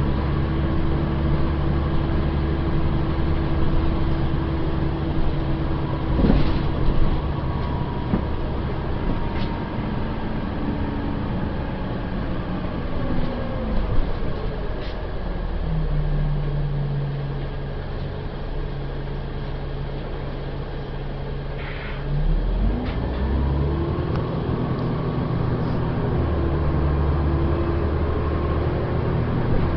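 City bus's diesel engine and drivetrain heard from inside the passenger cabin, running with a steady hum. Its pitch drops about halfway through, holds low and steady for several seconds, then climbs again, with a few clicks and rattles along the way.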